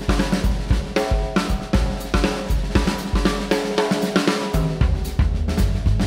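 Upbeat band music with a steady drum kit beat of snare, kick and cymbals under held pitched instrument lines; a heavy low bass line comes in about four and a half seconds in.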